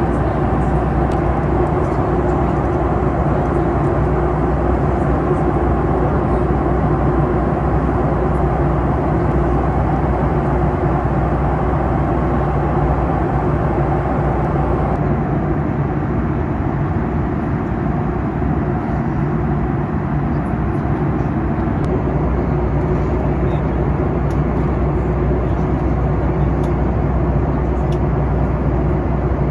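Steady cabin noise of a Boeing 737 MAX 8 jetliner in cruise: an even rumble and rush of airflow and its CFM LEAP-1B turbofan engines, with a low hum underneath.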